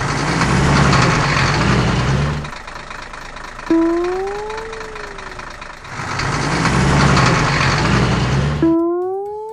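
Cartoon heavy-vehicle engine sound effect: a rumbling run that fades, followed by a short pitched tone that rises and then falls. The pair comes twice.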